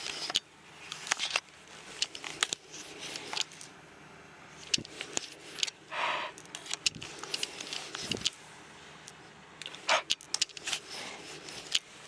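Handling noise close to the microphone: irregular clicks, taps and rubbing as hands work the camera and a small clear ring held up to the lens.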